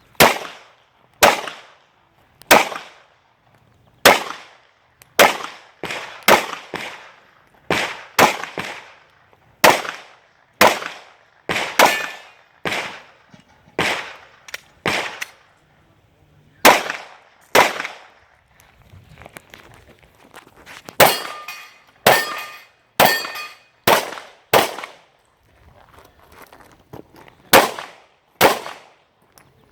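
Pistol fired in a timed action-pistol string: sharp shots one after another, singly and in quick pairs, with short pauses between groups. Each shot cracks and echoes briefly, and a few shots about two-thirds of the way through are followed by a short metallic ring.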